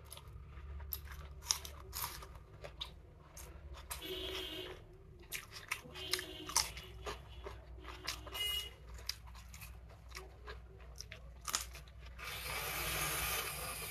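Close-up eating sounds: chewing chicken biryani with many small wet mouth clicks, and crisp bites into raw cucumber. A steady hiss comes in near the end.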